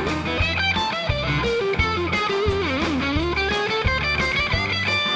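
Live country band playing an instrumental break: an electric guitar lead with bending notes over a steady bass and drum beat.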